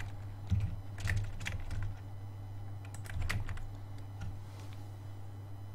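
Computer keyboard keys being pressed in scattered single clicks, roughly one a second, over a steady low electrical hum.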